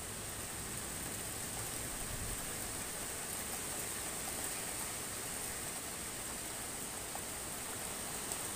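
Steady hiss of rain falling on the rooftops, with a couple of faint drop ticks near the end.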